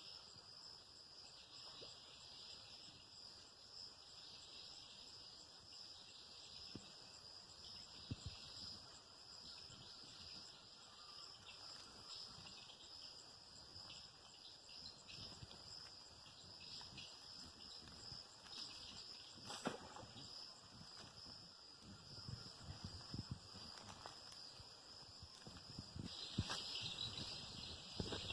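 Faint steady insect chorus, a continuous high-pitched drone, with scattered soft clicks and one sharper knock about two-thirds of the way through.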